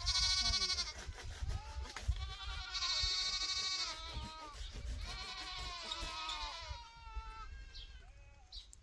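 Several goats bleating in overlapping, quavering calls. The loudest come at the start and about three seconds in, and the calls fade toward the end. A low rumble runs underneath.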